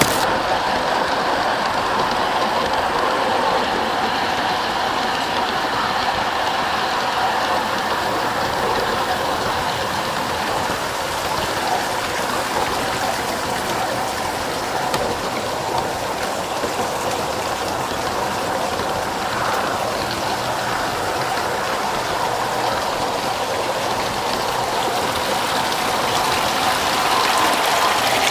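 G-scale model train rolling along its garden track, heard from aboard a car: a steady rattle of wheels on the rails with a faint, even hum from the running gear.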